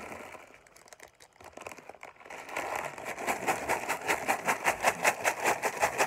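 A clear plastic bag full of small Lego studs being shaken to mix them, the plastic pieces rattling inside the crinkling bag. It starts as a quieter rustle, then about two and a half seconds in becomes a fast, even rattle of about four shakes a second.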